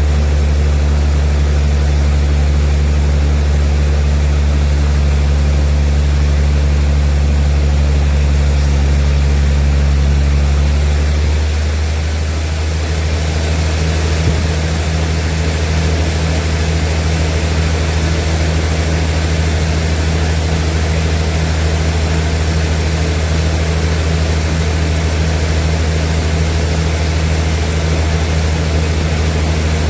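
Sawmill machinery running with a steady, heavy low hum. About eleven seconds in its note shifts and a high hiss drops away, and then it runs on steadily.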